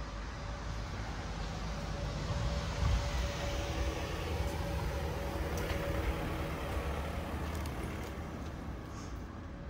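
Street traffic: a motor vehicle passing, its noise swelling in the middle and then fading.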